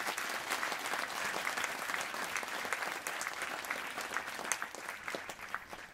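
Audience applauding, a steady clapping that begins to die away near the end.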